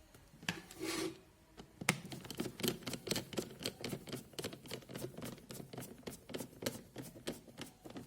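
A hand screwdriver driving a screw into the plastic housing of an electric kettle: a quick run of small clicks and scrapes, about five a second, starting about two seconds in.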